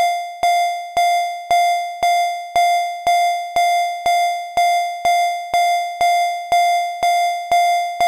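Synthesized alarm tone for a fictional emergency alert: a single buzzy note repeated about twice a second, each beep starting sharply and fading away before the next.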